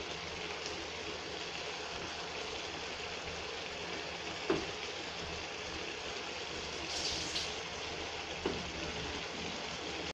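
Broth with mushrooms and sliced meat simmering in a wok: a steady bubbling hiss, with a couple of light knocks.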